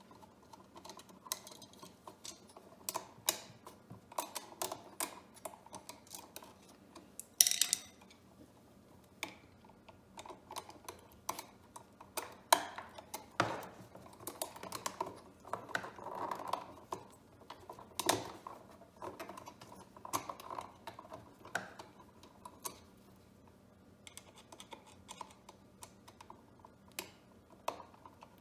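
Irregular small clicks and taps of a screwdriver on the terminal screws of a household duplex electrical outlet while the screws are loosened and the outlet and its wires are handled, with one louder scraping rasp about a quarter of the way in.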